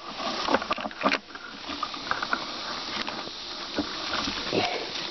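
Close rustling and crackling of leafy undergrowth as someone pushes through it, with irregular snaps and scrapes of stems against the microphone.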